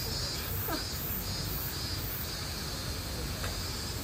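Outdoor background ambience: a steady low noise bed under a high buzz that pulses about twice a second, with one short falling call about a second in.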